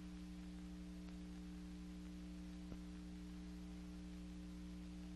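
Steady low electrical hum over hiss from the soundtrack of an old, worn film print, with one faint click about two and a half seconds in.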